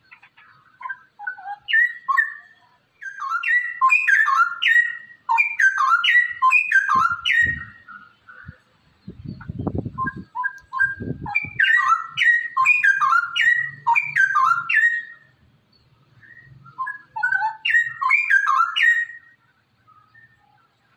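Straw-headed bulbul (cucak rowo) singing: runs of loud, rapid, bubbling whistled notes a few seconds long, separated by short pauses. A brief low rumble comes about halfway through.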